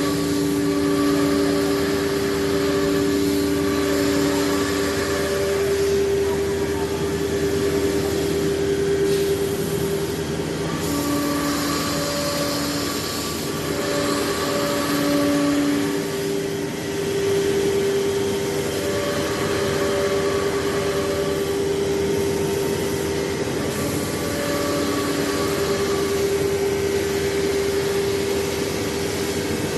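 CNC nesting router running: a steady spindle whine, with a second, lower tone coming and going in stretches of about five seconds as the machine works through its cutting passes.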